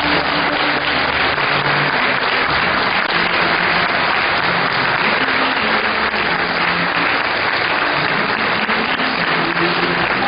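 Large crowd applauding, a steady dense clapping that holds throughout.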